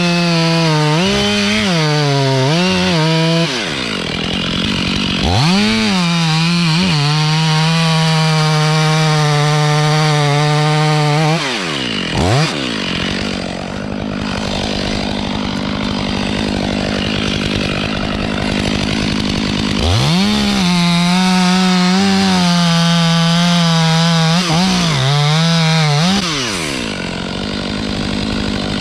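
Two-stroke chainsaw running hard: revved up and down in quick blips, then held at full throttle for several seconds. It eases into a steadier, slightly quieter stretch in the middle, goes back to full throttle with more blips, and drops off near the end.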